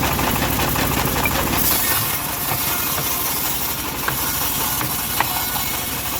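Homemade engine-driven bandsaw sawmill running on a teak log. About two seconds in, the deep engine rumble eases off and a steady hiss takes over.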